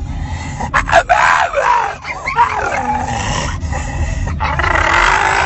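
A dog making several drawn-out vocal noises in a row, their pitch bending up and down, as if talking back.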